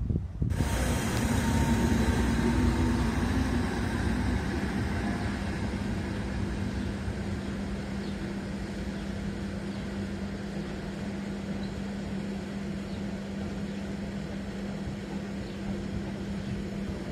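Trains running at a station platform: a steady mechanical hum with a low held tone, starting abruptly, loudest a couple of seconds in and then slowly easing off.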